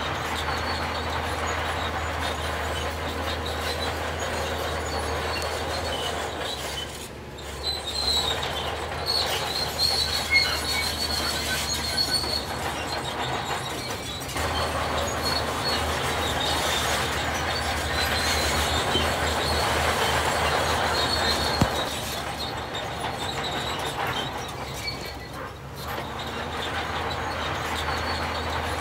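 Heavy earthmoving machinery running, with a steady low engine hum and metallic squealing that is strongest from about eight to thirteen seconds in.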